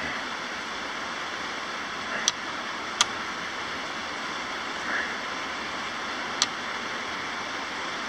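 Steady background hiss, with three small sharp clicks about two, three and six seconds in as a rubber boot is worked onto a toggle switch by hand.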